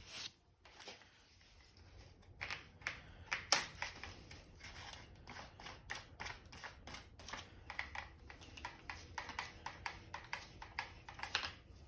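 Faint, irregular clicks and taps, a few a second, of small objects being handled and set down.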